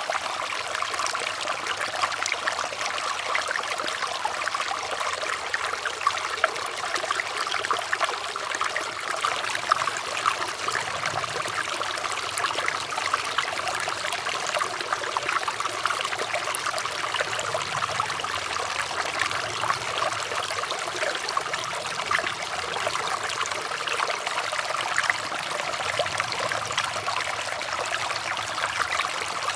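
Running water trickling steadily, a dense, even patter of small splashes.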